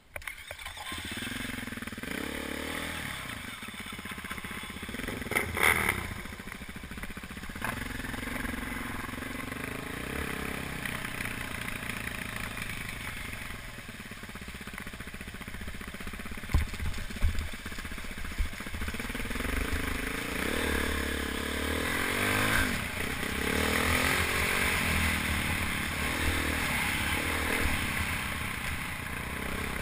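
BMW G450X single-cylinder four-stroke dirt bike engine, heard from the rider's helmet as it revs up and down while climbing a rocky trail. Knocks and clatter from the bike over rocks sound about six seconds in and again around seventeen seconds in.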